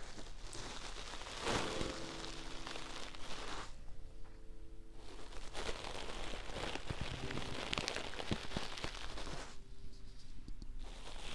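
Close crackly rustling and crinkling handling right at a binaural ASMR microphone, going in stretches that stop twice for about a second.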